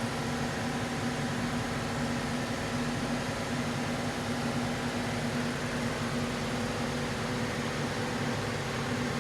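Steady mechanical hum of a motor or engine running at constant speed, with a low steady tone and no change in pitch.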